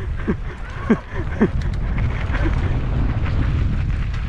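Wind buffeting the microphone during a fast ride, a steady low rumbling rush. Two short calls cut through about a second in.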